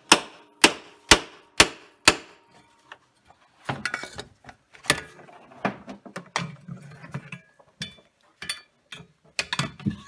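Five sharp knocks about half a second apart, then irregular knocking and clattering of hard objects.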